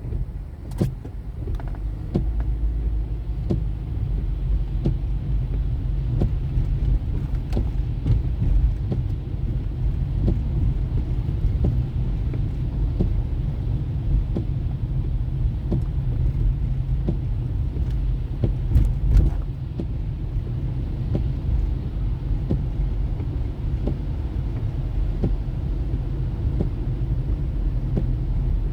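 A car driving: a steady low rumble of engine and road noise, with many small knocks and rattles along the way and a louder clatter about nineteen seconds in.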